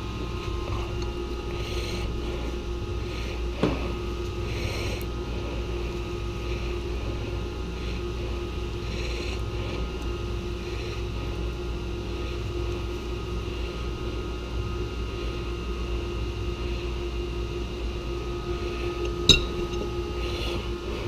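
Steady machinery hum with a constant tone and a low rumble underneath. Two sharp metallic clicks sound over it, one about four seconds in and a louder one near the end, as pipe wrenches work a threaded brass check valve tight on its pipe.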